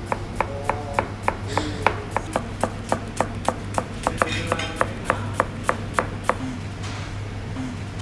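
Kitchen knife dicing an onion on a plastic cutting board: quick, even chops about three or four a second, stopping about six seconds in.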